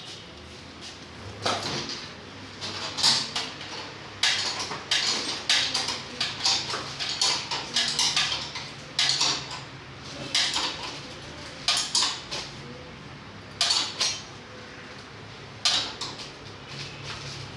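Metal hand tools and motorcycle parts clinking and knocking in irregular quick clusters as a mechanic works on the bike, over a faint steady low hum.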